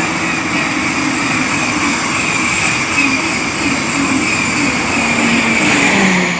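Electric train moving along the platform, a loud steady rushing with a high whine and wavering lower tones, easing off near the end.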